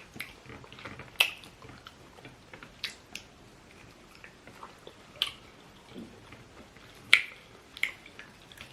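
A person eating curry rice with grilled fish: chewing, with scattered sharp clicks, the loudest about seven seconds in.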